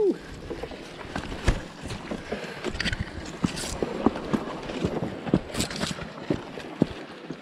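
Footsteps crunching through dry leaf litter on a forest floor, with irregular sharp clicks and knocks.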